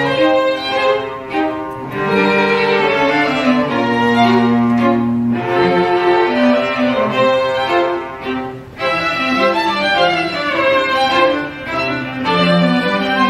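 String quartet of two violins, viola and cello playing live: held bowed notes layered into chords, with a short dip in loudness a little under nine seconds in before the playing picks up again.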